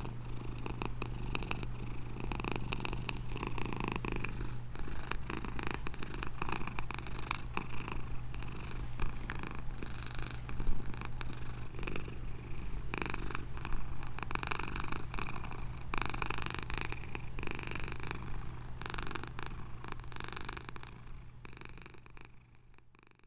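A domestic cat purring steadily and continuously, a low even rumble with a fine crackle over it, fading out near the end.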